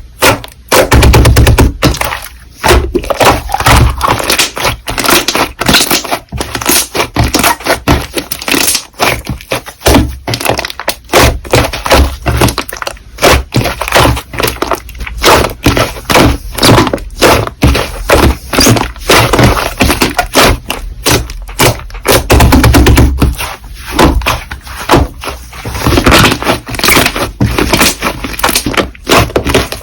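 Slime being squeezed, pressed and poked by hand, making a dense run of crackling and popping clicks.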